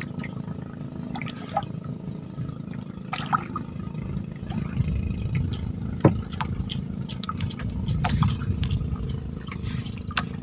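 Water sloshing and dripping, with scattered small splashes and clicks over a steady low rumble.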